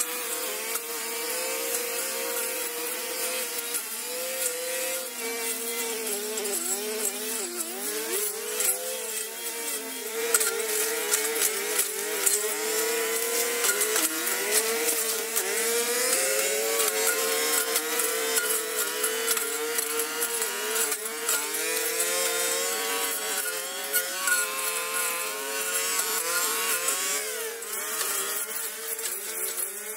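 Small engine of a handheld power tool running continuously, its pitch wavering and dipping over and over as it takes load while cutting.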